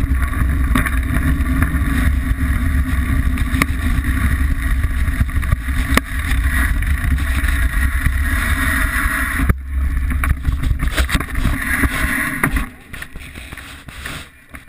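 Wind buffeting a bike-mounted camera's microphone, with the rattle and knocks of a Liteville 301 full-suspension mountain bike riding down a rough, rocky dirt singletrack. The noise drops away suddenly about 13 seconds in as the bike comes to a stop.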